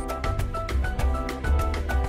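Background music with a quick, steady beat, a bright tune and a pulsing bass.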